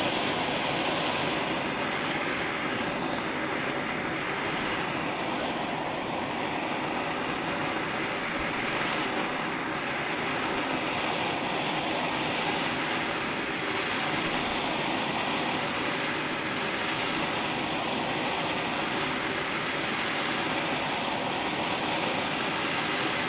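Aluminium plate being preheated before welding: a steady, even rushing hiss that starts suddenly with a sharp pop and cuts off abruptly over twenty seconds later.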